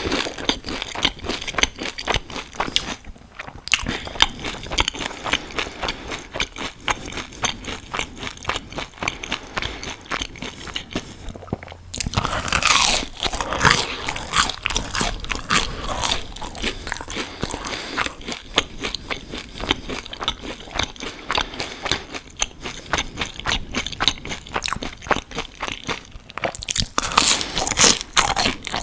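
Close-miked crunching and chewing of crispy fried onion rings: a dense run of crisp bites and chews, with a couple of brief pauses.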